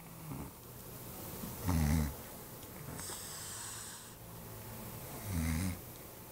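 A sleeping pet snoring: two short snores about three and a half seconds apart, with a hissing breath out between them.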